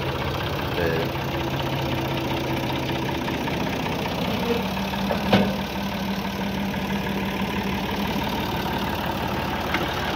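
Massey Ferguson 260 Turbo tractor's diesel engine running steadily while working a rear scraper blade. Its pitch shifts slightly a few seconds in, and a single sharp knock comes about five seconds in.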